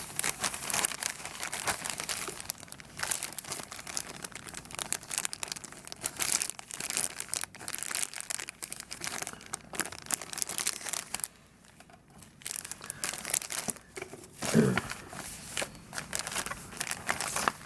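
Plastic kit packaging crinkling and rustling as it is handled, with a short pause about two-thirds of the way through.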